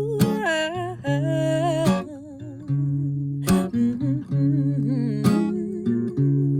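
Acoustic guitar strumming chords under a wordless hummed melody, the held notes wavering with vibrato, with a sharp strum every second or two.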